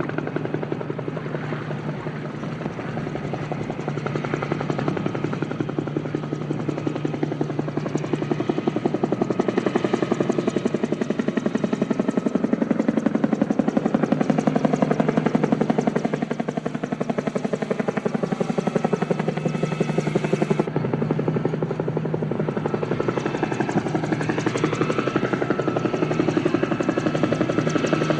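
Helicopter passing overhead: its rotor blades beat fast and evenly over a steady engine hum. It grows louder over the first dozen seconds, dips briefly, changes abruptly about twenty seconds in, then stays loud, with its pitch sliding near the end.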